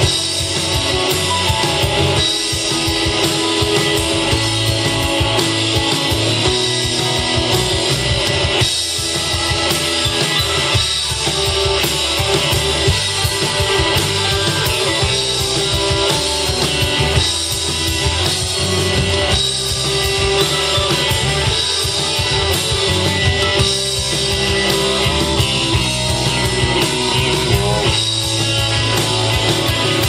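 Live rock band playing an instrumental passage with no singing: electric guitar, bass guitar and drum kit with keyboard, amplified and loud.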